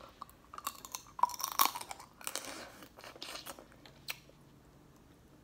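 Close-up chewing and crunching of food eaten by hand, with scattered small clicks and crackles that thin out near the end.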